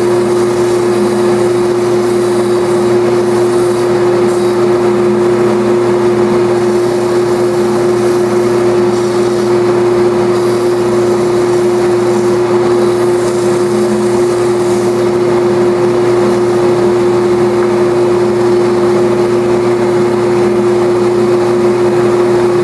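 JET belt and disc sander running with a loud, steady hum while a balsa wood dragster body is pressed against the sanding belt.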